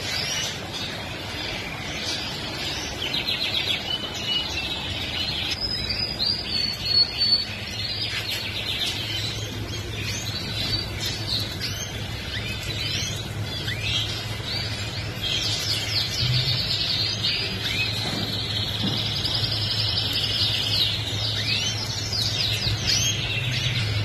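Many caged canaries singing at once, a dense chorus of rapid trills and chirps. A steady low hum runs underneath and grows stronger a few seconds in.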